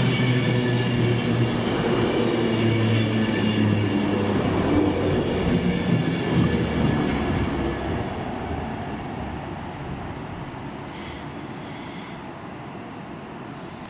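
A train passing through the station. Its steady low running note has a higher whine above it; the sound is loud at first and fades away over the second half.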